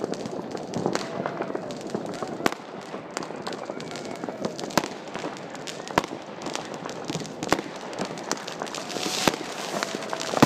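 New Year's fireworks: sharp bangs of rockets and firecrackers every second or two over a continuous crackle of many fireworks going off at once.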